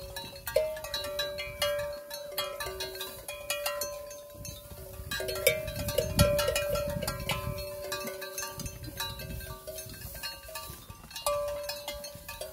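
Bells on grazing cattle clanking and ringing irregularly as the cows move and feed, several bells at once.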